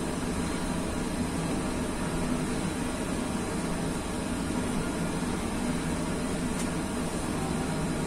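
Five church bells in E-flat, cast by Pruneri and Ottolina, being rung by rope from the ringing chamber beneath them. They are heard as a steady, dense wash of sound without distinct strokes.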